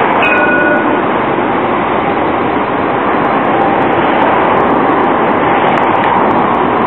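Edinburgh tram (CAF Urbos 3) passing close by on a curved section of track, a loud steady running noise of the tram on the rails. A brief high tone sounds just after the start, and a faint steady tone comes in from about four seconds in.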